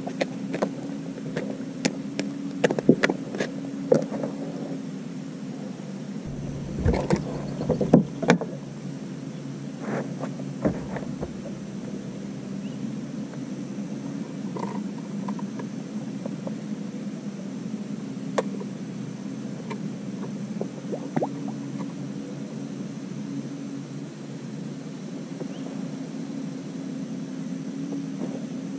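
Bass boat's bow-mounted electric trolling motor humming steadily, with sharp knocks and clicks of gear being handled on the deck, mostly in the first eight seconds or so.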